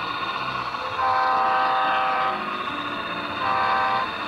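Model diesel locomotive's multi-note chord horn, sounded from the throttle's horn button: a long blast, then a short one. It is part of the long-long-short-long grade-crossing horn signal.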